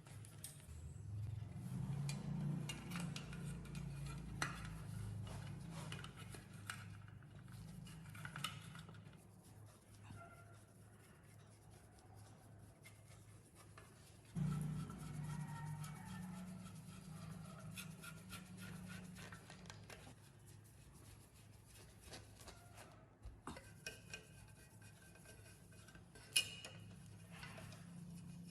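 Metal parts and hand tools clinking and tapping during workshop work, over a low steady electric hum that cuts in suddenly about halfway through.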